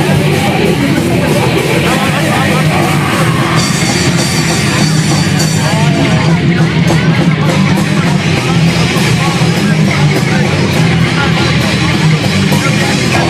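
Punk band playing loud and steady live, with electric guitar and a drum kit in a dense, unbroken wall of sound.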